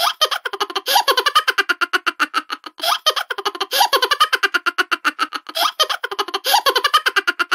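Looped giggling laughter sound effect: rapid pitched 'he-he-he' pulses, about ten a second, in phrases that repeat every second or two.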